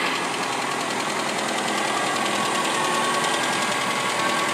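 1997 Saturn SC2's 1.9-litre twin-cam four-cylinder idling shortly after a cold start, with a steady, rapid knock throughout; the owner can't yet say what the knock is.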